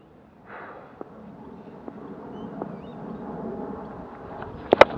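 Outdoor wind and field noise building up, then two sharp knocks in quick succession near the end.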